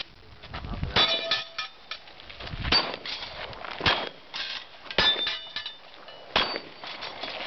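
Five pistol shots at a Texas Star steel target, spaced roughly a second apart, several hits setting the steel plates ringing with a bright metallic ding.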